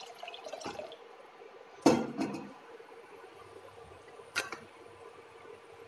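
Water pouring from a steel jug into a steel pot trails off in the first second. It is followed by a loud metallic clank about two seconds in and a lighter knock near four and a half seconds as a spoon stirs the pot, over a faint steady hum.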